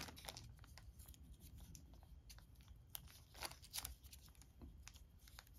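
Faint, scattered clicks and light handling noise as small game dice and their packaging are handled, close to near silence.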